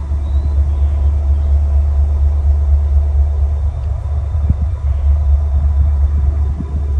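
Norfolk Southern EMD SD70ACe diesel-electric locomotive idling: a steady low rumble from its two-stroke V16 diesel engine.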